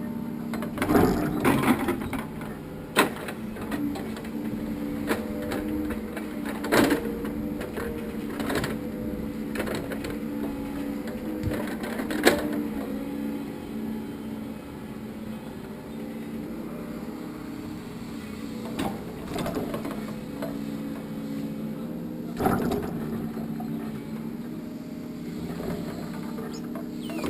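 Hydraulic log loader crane running with a steady machine hum that steps up and down in pitch as it works. Heavy logs knock and clatter against one another and the truck bed at irregular moments, loudest a second or so in, around twelve seconds in and near twenty-two seconds.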